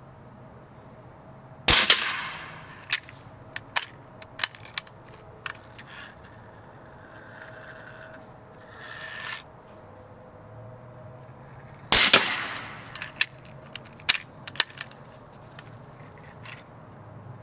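Two shots from a homemade .50 calibre compressed-air cannon fired through a quick exhaust valve, about ten seconds apart. Each is a sharp, loud blast with a short fading tail, and each is followed by a scatter of sharp clicks.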